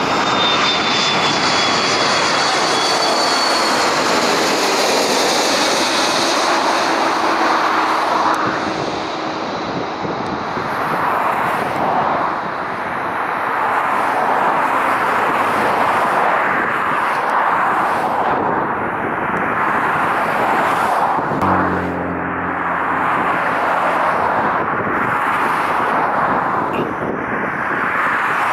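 Airbus A330-300 jet engines on final approach and landing: a high whine that falls in pitch over the first few seconds as the airliner passes, then a steady jet roar through touchdown and rollout.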